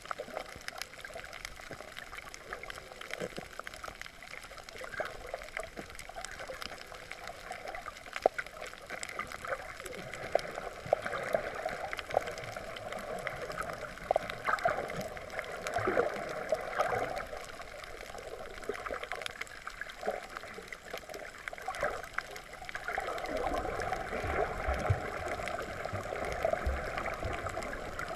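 Water moving and gurgling around an underwater camera, heard from below the surface, with scattered sharp clicks throughout. A louder stretch with more low rumble comes near the end.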